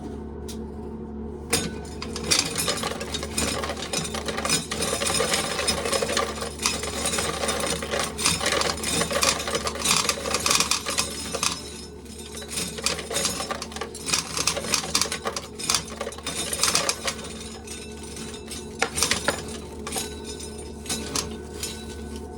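Dry corn kernels being shelled off the cob, clicking and rattling as they drop into a tub, over the steady hum of a fan. The rattling eases off briefly twice.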